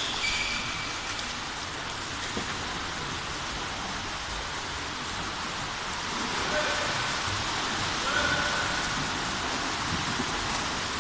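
Steady wash of splashing water echoing in an indoor swimming pool hall, growing a little louder after about six seconds, with two faint short tones about six and a half and eight seconds in.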